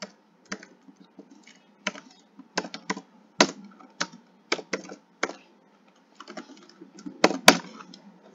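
Typing on a computer keyboard: irregular keystrokes in short runs with pauses between them. Two sharper, louder key clicks come close together about seven seconds in.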